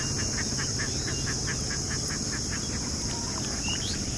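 A bird calling in a fast series of short notes, about five a second, fading out about two and a half seconds in, over a steady high drone of insects; a short rising chirp near the end.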